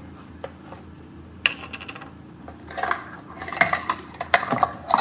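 Plastic measuring cups on a ring clicking and clattering against each other as they are handled: a few single clicks at first, then a quick run of them in the last two seconds.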